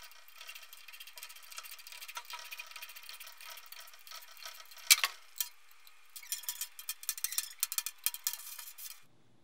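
Small screws being backed out of a cast-metal pump housing with a hand screwdriver: faint metal-on-metal scraping and ticking, with a sharper click about five seconds in and a run of quick ticks near the end.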